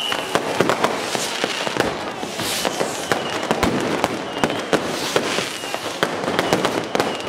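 Dense fireworks: a continuous barrage of bangs and crackling pops from many rockets and firecrackers at once, with a few short whistles now and then.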